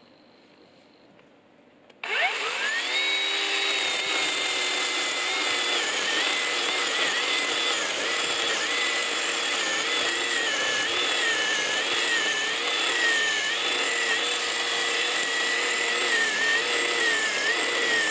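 Black & Decker GKC3630L20 36 V cordless chainsaw starting about two seconds in with a rising electric whine, then running steadily while cutting through a small log, its pitch dipping and wavering as the chain bites into the wood.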